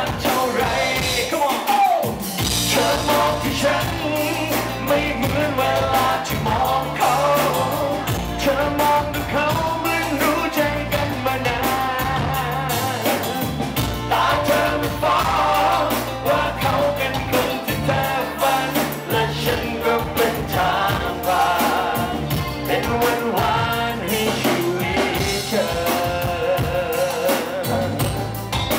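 Live pop-rock band music with male singing into a microphone, over drums and a steady bass line.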